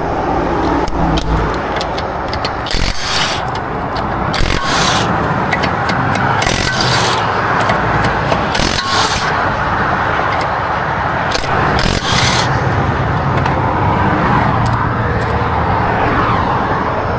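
Steady roadway traffic noise, with several short scrapes of about half a second each spread through it.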